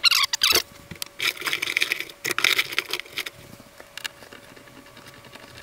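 Hands working at fittings on the top of a wooden door: two stretches of scraping and rustling with several sharp clicks and knocks between them.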